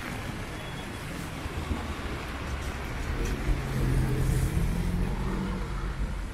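City street traffic on wet asphalt: tyres hissing on the wet road, with a car passing close about halfway through, its engine hum swelling and then fading.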